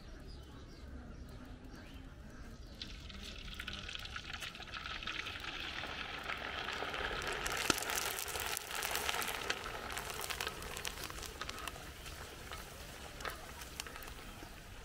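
Hot oil sizzling as a giant papor wafer deep-fries in a large wok, with scattered pops. The sizzle builds about three seconds in, is loudest midway, and dies down over the last few seconds.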